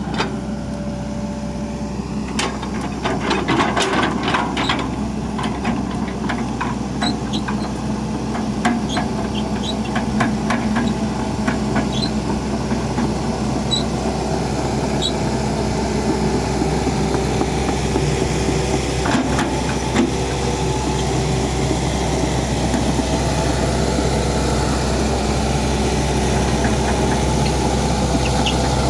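Hitachi Zaxis crawler excavator's diesel engine running steadily as the machine travels on its steel tracks. Irregular clicks and clanks from the moving track links come mostly in the first half.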